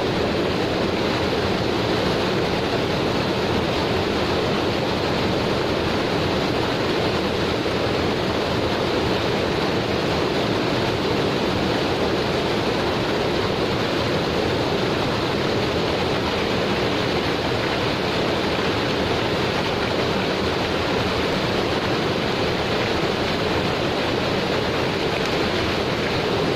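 Waterfall pouring close by, a loud, steady rush of falling water.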